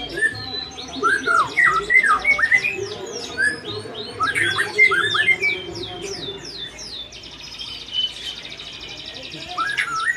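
White-rumped shama singing: a quick, varied run of sweeping whistled notes, then from about the middle a fast buzzy rattle lasting a few seconds, with the sweeping notes coming back near the end.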